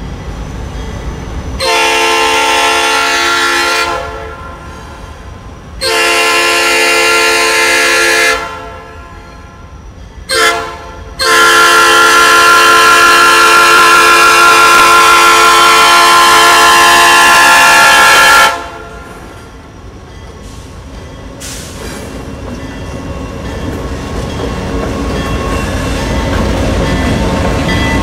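Norfolk Southern diesel locomotive 7006's multi-chime air horn sounding the grade-crossing signal: two long blasts, a short one, then a long blast held about seven seconds. After it the locomotive's engine and wheels rumble, growing louder as it rolls up and past close by.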